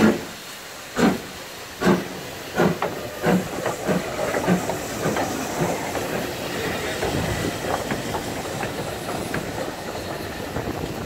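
BR Standard Class 7 'Britannia' 70000, a two-cylinder 4-6-2 steam locomotive, starting away: loud exhaust chuffs, about one a second at first and quickening, with steam hissing from the open cylinder drain cocks. After about six seconds the beats blur into a steady rumble and hiss as it gathers speed past.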